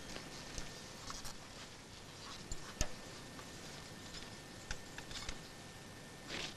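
Scattered faint metal clicks and knocks from a makeshift lever hoist being worked by hand to lift an engine. The sharpest click comes a little under three seconds in, with a longer scrape near the end.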